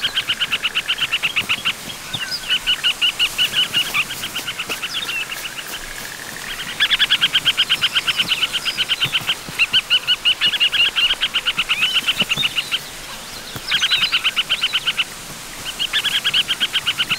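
Harriers giving their rapid alarm chatter in an aerial fight: fast runs of sharp, high notes, about ten a second, repeated in bursts of one to three seconds with short breaks between.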